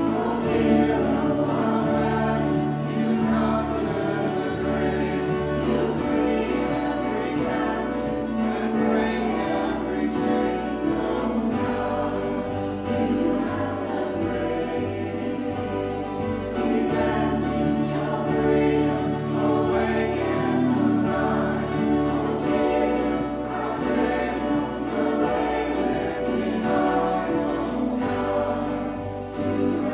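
A small church praise band performing a hymn: voices singing over acoustic guitar and keyboard.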